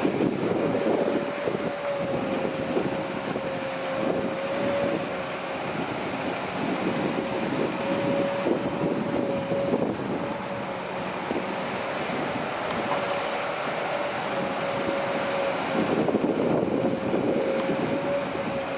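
Kobelco SK200-8 hydraulic excavator working, its diesel engine running with a steady whine. The engine noise swells several times under load.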